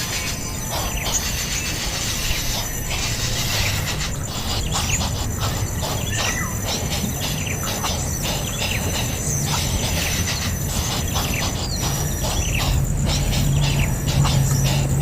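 Outdoor chorus of insects holding a steady high trill, with many short bird chirps and quick falling calls over it, and a low hum underneath that grows stronger near the end.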